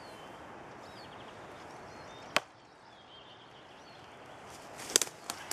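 Quiet outdoor background with small birds chirping faintly, broken by one sharp knock a little over two seconds in and a quick cluster of three or four sharp knocks near the end.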